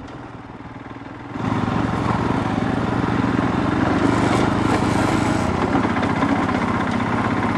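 Royal Enfield Himalayan's 411 cc single-cylinder engine running while the motorcycle rides over a rough dirt track. It gets suddenly louder about a second and a half in and stays loud.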